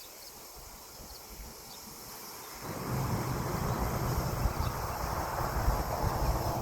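Insects chirping steadily. About two and a half seconds in, a loud rushing noise starts abruptly over them and cuts off near the end.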